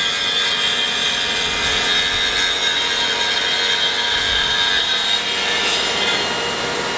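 DeWalt table saw with a concrete-cutting blade ripping a manufactured stone veneer panel lengthwise: a steady grinding cut over the saw's whine. A leaf blower runs alongside, blowing the stone dust off the saw.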